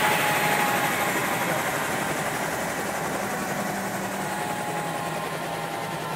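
Helicopter engine and rotor running and slowly getting quieter, with a faint high turbine whine falling in pitch as it winds down.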